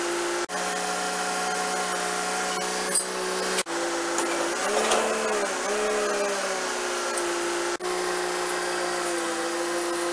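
Machinery running with a steady whining hum that dips and recovers in pitch once about halfway through, cut off for an instant three times.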